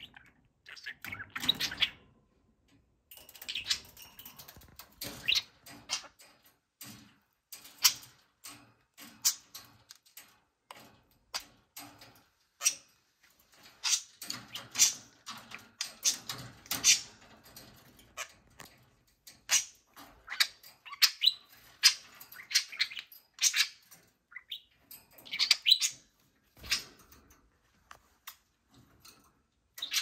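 Budgerigars chattering: a run of short, high chirps and warbles that come in quick bursts, on and off.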